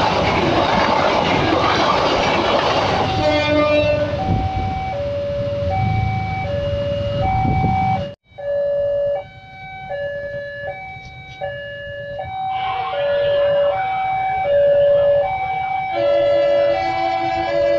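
A passenger train's carriages rush past close by for about the first three seconds. Then a level-crossing alarm sounds, steadily alternating between a higher and a lower tone, and drops out abruptly for a moment around halfway.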